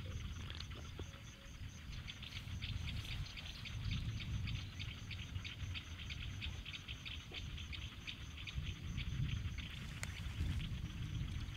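Insects, crickets or katydids, calling in a steady, rapid pulsing rhythm of about five pulses a second, pausing briefly near the end and then starting again, over a low rumble of wind.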